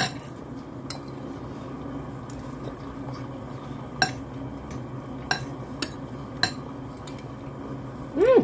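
Metal fork clinking and scraping against a glass serving bowl of noodles, a scattering of light clicks every second or so over a steady low hum. A short voiced hum near the end.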